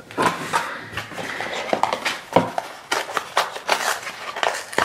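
Small cardboard blind box handled and opened by hand: a quick run of cardboard taps, scrapes and rustles.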